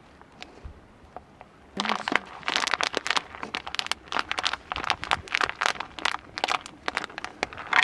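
A plastic pouch of powdered food crinkling as it is kneaded by hand, a dense run of crackles starting about two seconds in.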